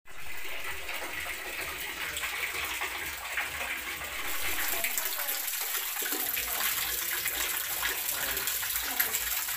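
A thin stream of water pouring from a bamboo spout and splashing into a shallow rock pool: a steady splashing trickle that grows a little louder about four seconds in.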